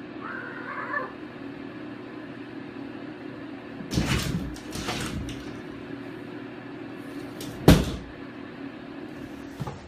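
Steady mechanical hum, with a few scraping knocks about four and five seconds in and one sharp thump near eight seconds in, like a cupboard or door being handled.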